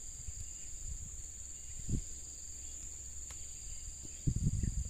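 Steady high-pitched insect chorus. A low thud comes about two seconds in, and a short cluster of louder low thuds near the end.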